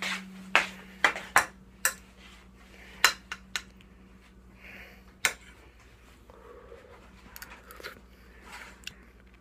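A spoon clinking and scraping against a dish of risotto, in irregular sharp clinks that come thickest in the first couple of seconds, with a faint steady hum underneath.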